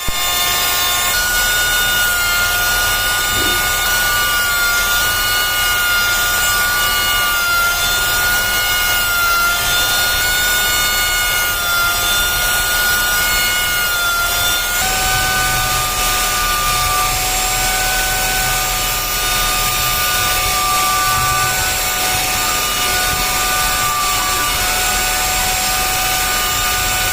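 A small high-speed power tool running continuously, a steady whine of several tones over a hiss; the pitch shifts up slightly about halfway through.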